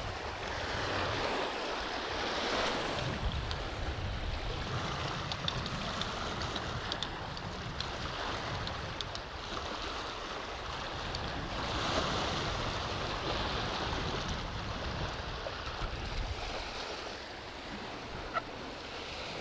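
River water washing and lapping against the bank in swells that come and go, with wind rumbling on the microphone.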